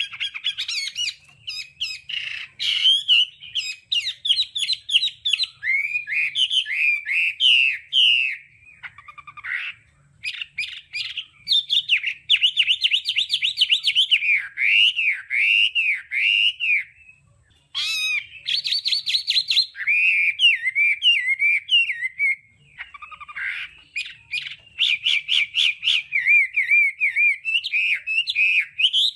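Chinese hwamei singing a long, varied song of rapid repeated whistled notes, trills and looping phrases that keep changing. There are short breaks about ten seconds and about seventeen seconds in.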